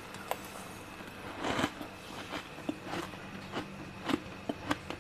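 Someone biting and crunching frost ice from a freezer, played back slowed down: a loud crunch about a second and a half in, then sharp crackling clicks two or three a second. A faint steady hum runs underneath.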